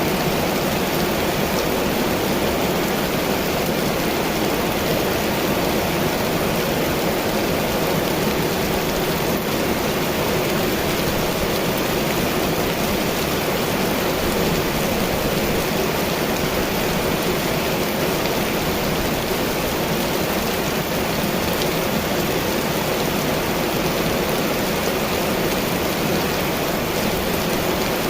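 Heavy rain pouring steadily, an even, unbroken hiss of falling water.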